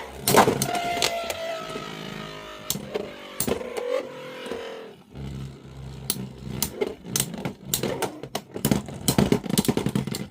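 Beyblade X spinning tops, Soar Phoenix among them, whirring and clashing in a plastic stadium: a high spinning whine falls slowly in pitch over the first few seconds, with repeated sharp clacks of the tops colliding. Near the end comes a fast, dense run of clacks that stops suddenly.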